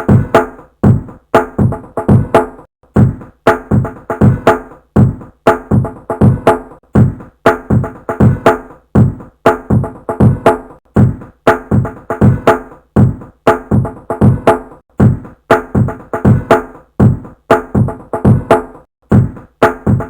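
A looped drum pattern: sharp drum hits with pitched, ringing tones, about two to three a second, repeating in an even rhythm.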